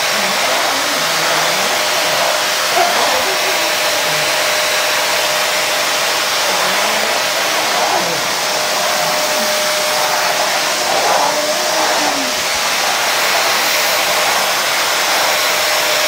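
Canister vacuum cleaner running steadily, its motor holding an even whine over the rushing air as the floor nozzle is pushed about.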